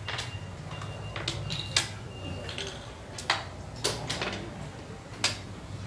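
A handful of sharp, irregularly spaced clicks and clinks of hard objects over a steady low background rumble.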